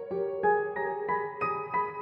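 Background music: a melody of single notes struck evenly, about three a second.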